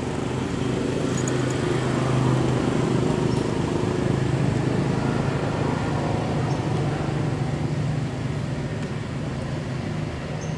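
A motor vehicle's engine running with a steady low hum, growing louder a second or two in and easing off again after about eight seconds.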